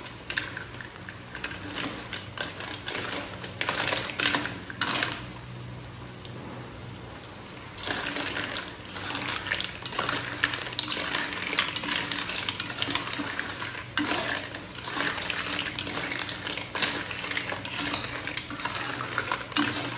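Metal spatula stirring batik clams in chili sauce in a wok, scraping the pan and clattering the shells. It comes in irregular bouts, with a lull of a few seconds about five seconds in, then busier stirring from about eight seconds.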